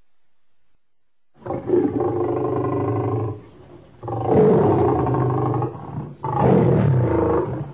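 Lion roaring: three long, deep roars one after another, starting about a second and a half in.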